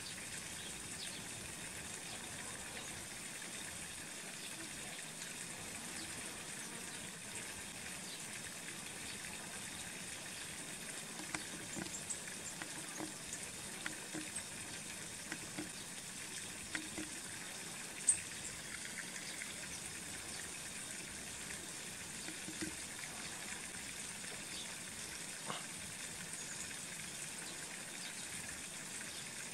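Steady rush of running water, with a few faint clicks in the middle and one sharper tick about eighteen seconds in.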